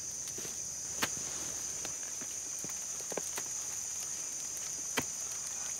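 Night insects, likely crickets, chirring as one steady high drone, with a few scattered sharp clicks, the loudest about a second in and near the end.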